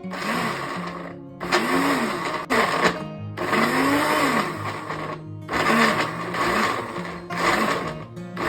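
Countertop blender pulsing in about six bursts of one to two seconds, with short breaks between them, chopping onions, green bell peppers, ginger, garlic and fresh peppers into a paste. Background music plays underneath.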